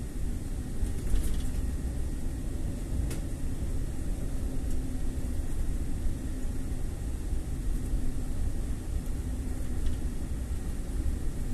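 A car driving, with a steady low rumble of engine and road noise and a faint hum that comes and goes.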